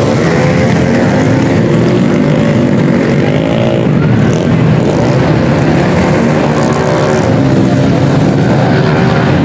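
Several small racing motorcycles running hard past, their engines revving up and down in overlapping waves as they accelerate out of a corner.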